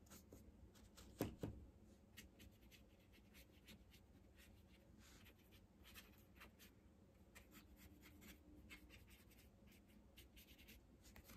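Faint scratching and light tapping of a watercolour brush worked on paper, with two louder knocks a little over a second in.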